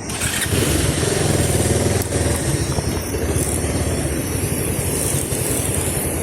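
A vehicle engine picks up about a third of a second in and then runs steadily as the vehicle moves off along the road, with a high steady hiss over it.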